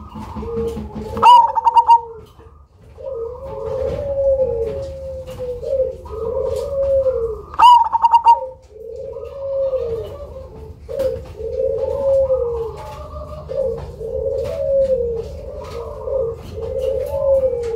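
Black cemani perkutut (zebra dove) cooing: a steady run of low, arching coos about once a second, broken twice by a loud, rapid higher call, about a second in and again a little before halfway.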